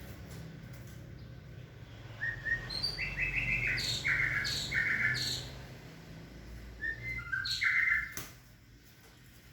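White-rumped shama calling: a run of about five short, repeated notes starting about two seconds in, then two or three more just before the end.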